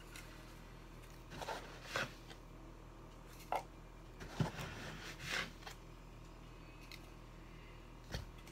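Granulated sugar being scooped out of a plastic canister into a plastic measuring cup: a handful of short, scattered scrapes and rustles, over a low steady hum.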